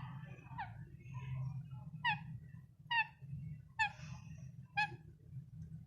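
A parrot calling in short, sharp chirps, repeated about once a second, over a steady low hum.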